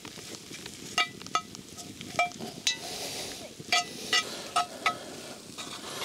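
A metal utensil stirring a curry base in a Dutch oven, knocking against the pot in several sharp, ringing clinks, over the sizzle of the onion, garlic and spices frying.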